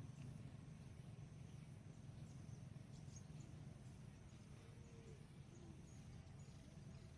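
Near silence: faint outdoor background noise with a low rumble and a few faint, short chirps.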